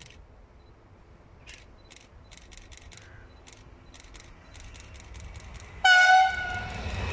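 Double-deck electric multiple unit's horn sounding one short blast as it approaches, given as a greeting to the trainspotter. The train's rolling noise swells in just after it.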